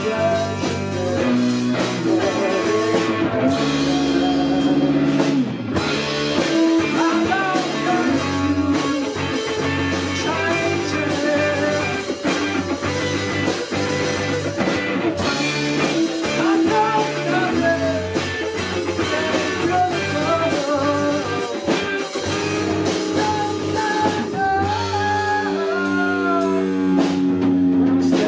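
Rock band playing live, with drum kit, guitar and a singer's voice over the top.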